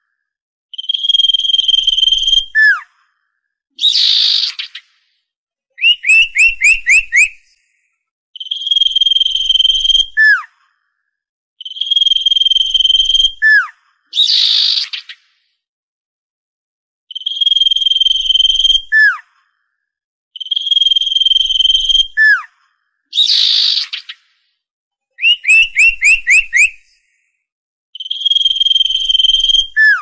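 Common iora song: long clear whistled notes, each ending in a quick downward slur, repeated over and over. A harsh rasping note breaks in three times, and a quick run of five or six chattering notes comes twice.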